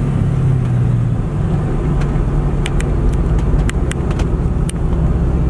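Inside the cab of a 1970 Chevrolet K10 pickup on the move: its fuel-injected 350 cubic-inch GM crate V8 runs steadily under road noise. A few short, sharp ticks come in the middle.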